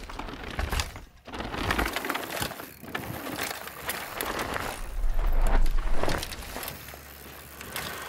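Mountain bike riding a dirt track: tyres crunching over packed dirt with many small clicks and rattles. There is a heavier low rumble about half a second in and again from about five to six seconds, with a brief lull just after one second.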